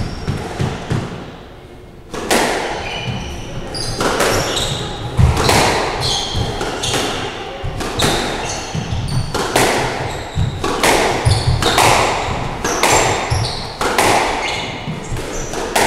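Squash rally in an enclosed court: the ball smacks off rackets and walls every half-second to a second, each hit ringing around the court. Shoes squeak between the shots. Play starts about two seconds in, after a short lull.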